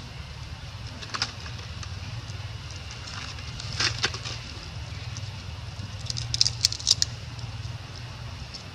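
Scattered short crackles and clicks over a steady low rumble: one about a second in, a pair near four seconds, and a quick cluster between six and seven seconds.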